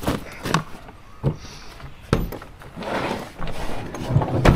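Five or so sharp knocks at irregular intervals, the loudest near the end, with some rustling between them.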